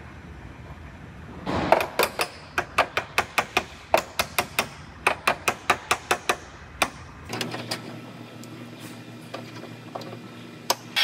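A rapid run of sharp taps on sheet metal from a hand tool, about three a second for some five seconds, as a steel backing plate is worked into place at a car's quarter-panel joint. A steady low hum follows, with one more knock near the end.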